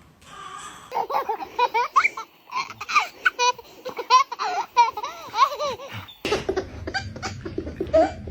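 A baby laughing hard in repeated bursts of belly laughter. About six seconds in, the sound shifts abruptly and the laughing carries on over a low rumble.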